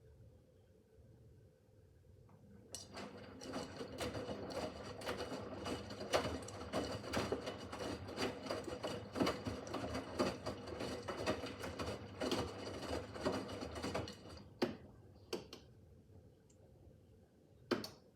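Miele W5801 front-loading washing machine in its wash phase: the drum turns for about eleven seconds, with laundry tumbling in a dense run of clicks and knocks over a steady hum, then stops. A few single knocks follow near the end.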